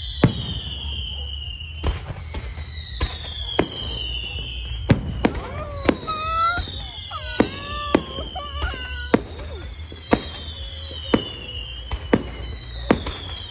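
Fireworks going off: a run of sharp bangs and crackles about every half second to a second, with several high whistles each falling in pitch over a second or two.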